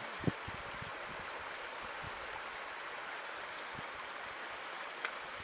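Steady rushing noise, with a brief low thump a fraction of a second in and a faint click near the end.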